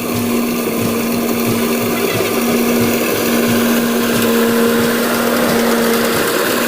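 Rice combine harvester running steadily, a loud constant engine and machinery hum holding one steady pitch.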